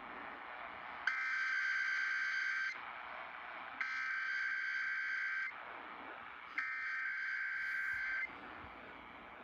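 Emergency Alert System SAME header heard over a radio broadcast: three identical bursts of screechy digital data tones, each about a second and a half long and about a second apart. The header encodes a Required Weekly Test.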